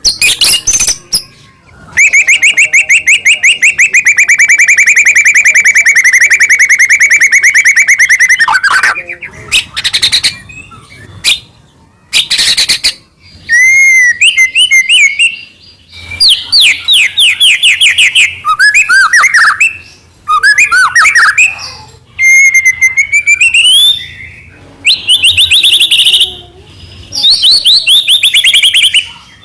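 White-rumped shama (murai batu) singing loudly in full song. It opens with a long, rapid trill of repeated notes lasting about seven seconds, then sings varied phrases of whistles, rising notes and fast chattering trills with short breaks between them.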